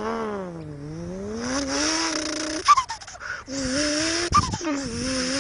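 A person imitating a turbocharged car engine with his mouth: a buzzing engine note that dips and then climbs like revving, with a hissing whoosh over it. It breaks twice with a short upward chirp, like a gear change, before going on.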